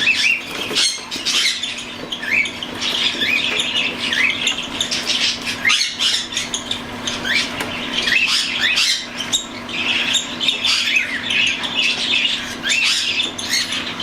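Young cockatiels, weeks-old chicks near weaning, giving rapid repeated raspy begging calls, each a short upward-rising squawk, several a second: the begging of hand-fed chicks at syringe feeding. A steady low hum runs underneath.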